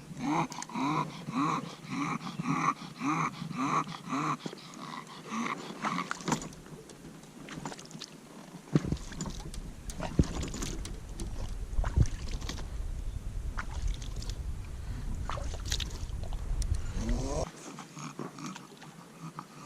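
Bulldog panting hard in rhythmic, throaty huffs, about one and a half a second, for the first six seconds. After that a low steady rumble sets in, with scattered sharp clicks and knocks.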